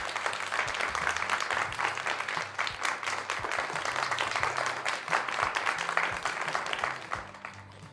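Background music with a dense crackling noise laid over it, a steady patter of many fine clicks that stops shortly before the end.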